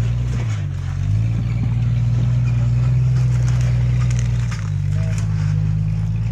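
Off-road vehicle's engine running at low speed on a trail. The engine note dips and picks back up about half a second in, then drops to a lower steady note after about four and a half seconds as the throttle eases.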